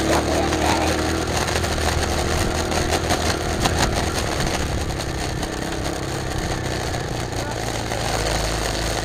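X8 mini bike's small engine running under way, over a rough, steady rush of noise. A steady engine note in the first second or so drops slightly in pitch and fades into the noise.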